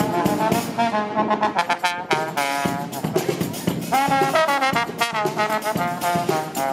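Music: brass instruments playing a melody in short notes over a steady drum beat.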